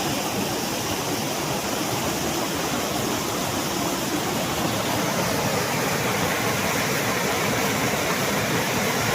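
A sizeable waterfall pouring steadily, a constant rushing of falling water.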